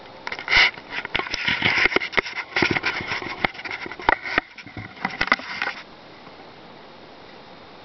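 Handling noise: irregular clicks, knocks and rustles, which stop about six seconds in.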